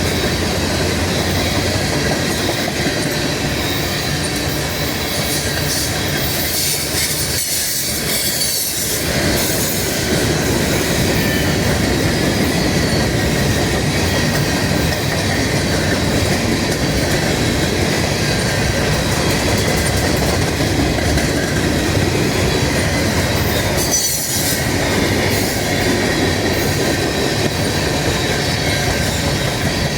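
Train cars rolling past on the rails, a steady loud rumble with faint wheel squeal.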